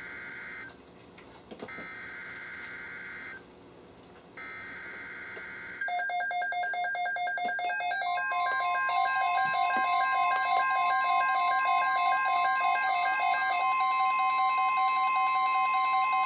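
NOAA Weather Radio emergency alert: three short bursts of the SAME digital header, a warbling two-tone data signal, separated by brief silences. About six seconds in, several weather alert radios start beeping their alarms in different pulsing patterns, and about two seconds later the broadcast's steady single-pitch warning alarm tone joins them and holds.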